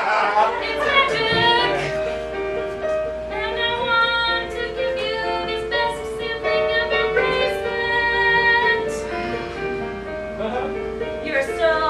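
A woman singing a slow song in long held notes, with musical accompaniment.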